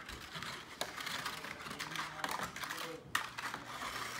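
Basting brush dabbing and stroking sticky glaze onto a ham in a disposable aluminium foil pan: a patter of small, quick clicks and scrapes.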